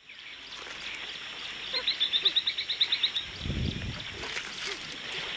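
A bird giving a fast run of about a dozen short, high chirps lasting about a second and a half. Behind it are a steady outdoor hiss and a few scattered fainter calls, with a brief low rumble about three and a half seconds in.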